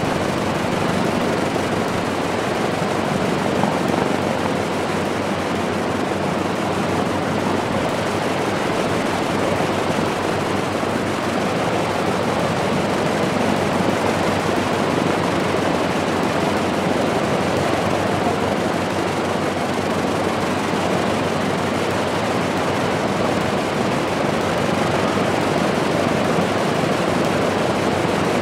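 Lockheed P-38F Lightning's two liquid-cooled Allison V-1710 V-12 engines running steadily during a ground run.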